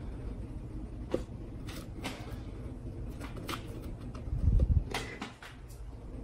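Hands handling an open lithium battery pack: scattered light clicks and taps, then a dull low thump about four and a half seconds in, over a steady low hum.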